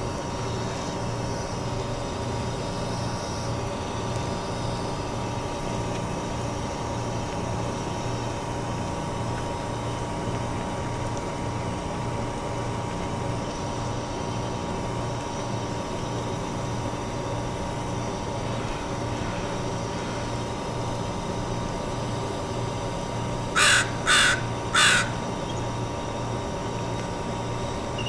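A crow cawing three times in quick succession near the end, over a steady low mechanical hum with an even pulse.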